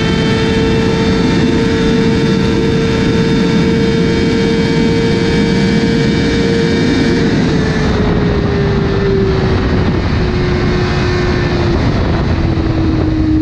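BMW S1000RR's inline-four engine running flat out in sixth gear at close to 300 km/h, a steady high-pitched drone over heavy wind rush. About seven seconds in, the engine pitch starts falling slowly as the bike slows.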